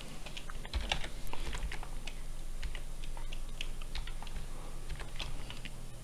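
Typing on a computer keyboard: a run of quick, irregular keystrokes.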